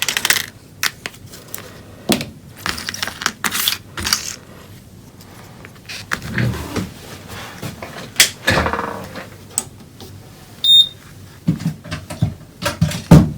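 Small tools and electronic parts handled on a workbench: scattered clicks, taps and short scrapes, with a longer scrape about two-thirds of the way through and a brief high beep shortly after.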